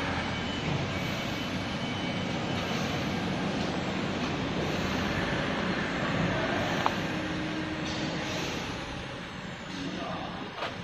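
CO2 laser cutting machine running: a steady rush of air and fan noise, with a faint high whine that rises and falls about once a second, and a short click about two-thirds of the way through.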